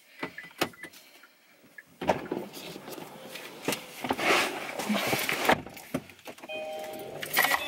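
A car seatbelt being pulled out and buckled, with clicks and clothing rustle, while a car door opens and someone climbs into the driver's seat. A steady tone sounds near the end.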